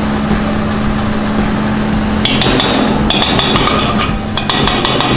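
Cotton candy machine running with a steady hum, with light knocks and clinks on top. About two seconds in the hum fades and higher steady tones take over.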